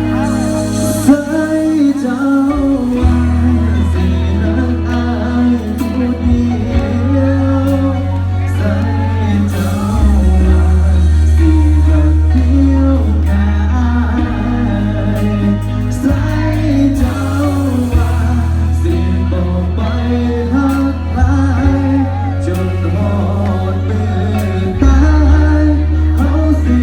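Live band music with a singer, played loud through a Thai rot hae parade-truck sound system, with heavy bass notes held for a few seconds at a time under the singing voice.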